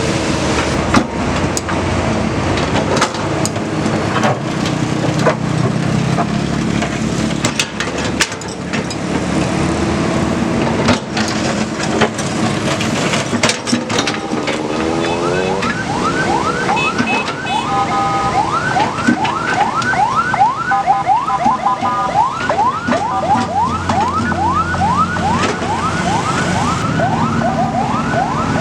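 Heavy diesel machinery running, with scattered metal clanks. About halfway through, an electronic siren winds up and switches to a fast yelp, sweeping up a few times a second, with a brief two-tone wail in between.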